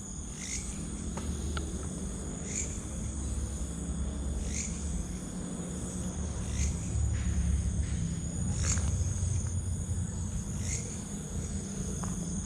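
Night insects: a steady high-pitched trill, with a short sharp call repeating about every two seconds, over a low rumble.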